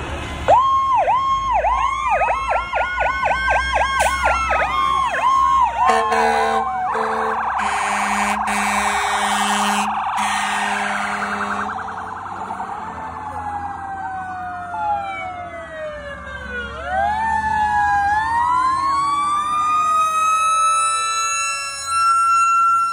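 Fire truck sirens sounding as the engines pass: a fast warbling yelp with a rising and falling wail over it, then a loud horn blaring in short blasts from about six seconds in. In the last seconds several sirens overlap, winding down and rising again into one long climbing wail.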